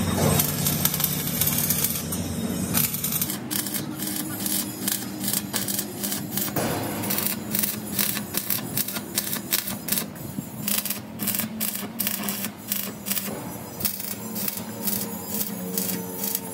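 Stick-welding arc crackling and sputtering against steel plate, in fast irregular bursts with brief breaks, from about three seconds in.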